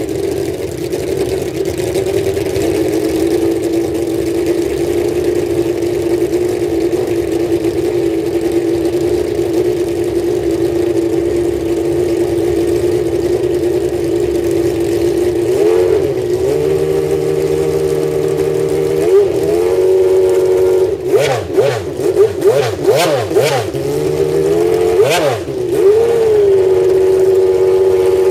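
Honda Formula One V12 engine idling with a steady high note. About halfway through it is blipped on the throttle: single revs rising and falling, then a quick run of short blips, before it settles back to a steady idle.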